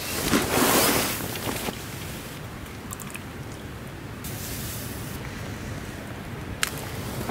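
A short burst of rustling, then water poured from a stainless steel insulated bottle into a small cup, heard as a steady hiss.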